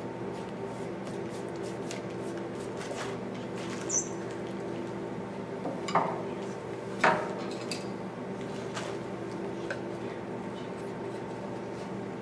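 Palm chisel shaving white cedar in faint, short scraping cuts, with a few sharp metallic clinks as steel carving tools are knocked and handled among the others on the tool table, the loudest about seven seconds in. A steady low hum runs underneath.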